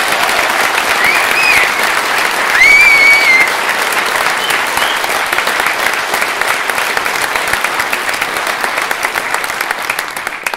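A large audience applauding, with two short shrill whistles rising above the clapping about a second and about three seconds in. The clapping thins out at the very end.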